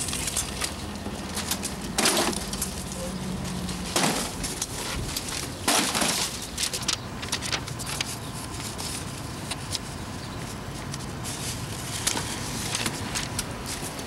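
Paper rustling and crinkling as sheets are handled at a Canon photocopier, with louder short crunches about two, four and six seconds in.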